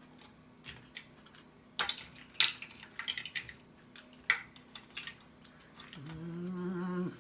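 Scattered sharp clicks and cracks of lobster and crab shell being picked apart and eaten, a few strong ones in the middle. Near the end, a hummed 'mmm' of enjoyment held for about a second.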